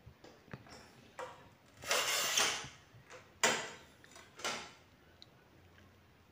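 Manual rail tile cutter working a porcelain floor tile: a few light clicks of the handle and carriage, then a scratchy scrape of the scoring wheel across the tile about two seconds in. About a second later comes a sharp crack as the tile snaps along the score, then a shorter knock and scrape as the pieces are handled.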